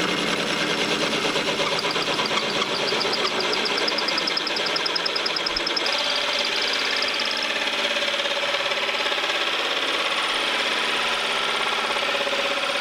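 Cordless drill with a hole saw running steadily as it cuts through a fibreglass boat hull. The tone shifts about halfway through.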